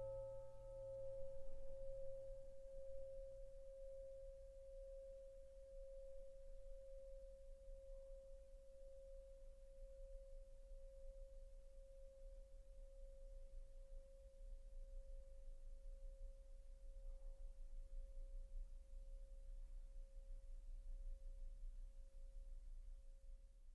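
The lingering tone of an orchestral bell, ringing alone as one steady pure pitch and fading very slowly, once the string orchestra has stopped at the close of the piece.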